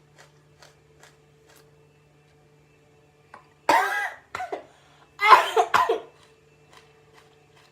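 A woman coughing while eating a raw purple onion: a short fit of voiced coughs about halfway through, then a louder run of coughs a second later. Faint chewing clicks come before it, at about three a second.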